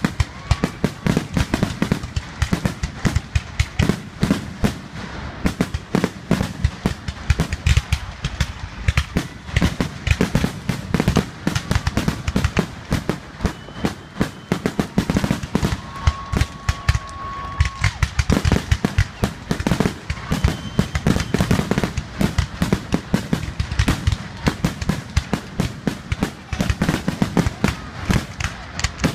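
Fireworks finale: aerial shells bursting one on top of another in a rapid, continuous barrage of bangs and crackles.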